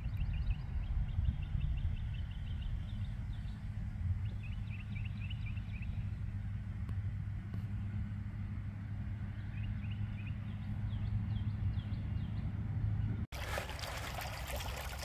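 A steady low engine hum with birds chirping in short quick runs. About thirteen seconds in, it cuts abruptly to a louder, rough hiss.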